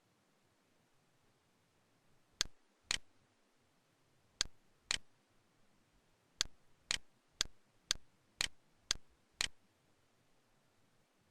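Computer mouse click sounds, eleven sharp clicks half a second apart: two pairs, then a run of seven near the end.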